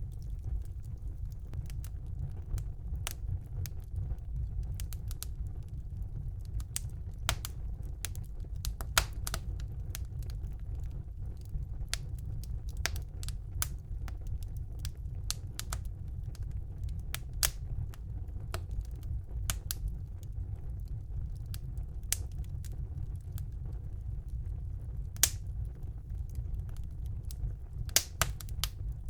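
Wood fire burning in a fireplace: irregular sharp crackles and pops over a steady low rumble of the flames, with a few louder pops scattered through.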